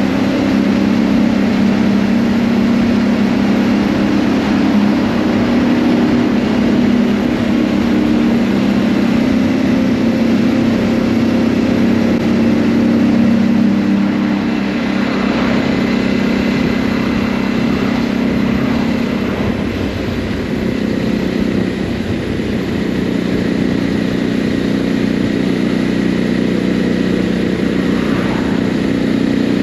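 Motorcycle engine running steadily at cruising speed, with wind and road noise, heard from the rider's seat. The sound shifts slightly about halfway through.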